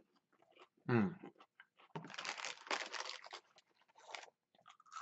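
Close-up chewing of crispy fried cheese curds: a dense crunching for about a second starting two seconds in, and a shorter crunch just after four seconds. A brief voiced murmur comes about a second in.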